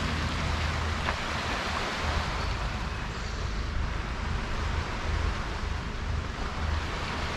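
Wind buffeting the microphone with an uneven low rumble, over a steady hiss of small waves washing onto a stony shore.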